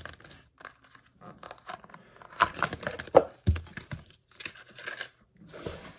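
Small toy box packaging being handled and opened: crinkling and tearing with scattered light clicks, and one dull knock about halfway through.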